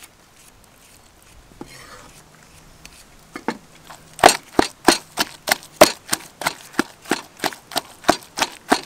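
Wooden pestle pounding chili paste in a wooden mortar. After a quiet start, steady knocks begin about three seconds in, about three strokes a second.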